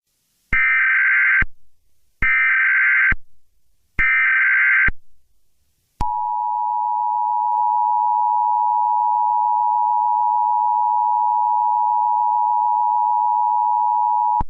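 Emergency Alert System tones: three one-second bursts of the SAME digital data header with short pauses between them, then the steady two-note EAS attention signal held for about eight seconds, marking the start of an emergency alert broadcast.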